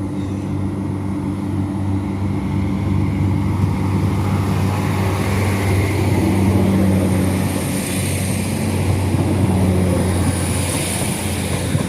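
NI Railways Class 3000 diesel multiple unit pulling away, its diesel engines running with a steady hum, while a higher whine grows louder through the second half.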